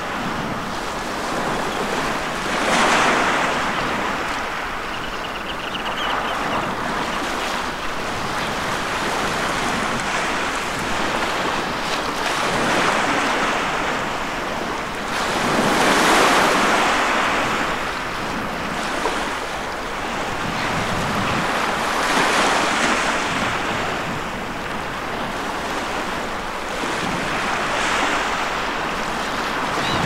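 Small waves breaking and washing over a seaweed-strewn shore. The surf swells and falls every few seconds, loudest about halfway through.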